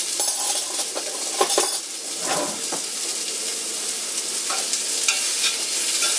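Sliced mushrooms and garlic sizzling steadily in hot oil in a small cast iron skillet, with a few brief clicks.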